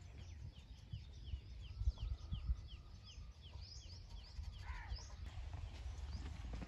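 Birds calling: a quick run of short falling chirps, about three a second, for the first four seconds, then a louder, lower call about five seconds in.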